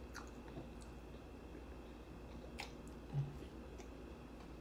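Faint close-up chewing of a taco with the mouth closed, with a few small crackles and a short, low thump about three seconds in.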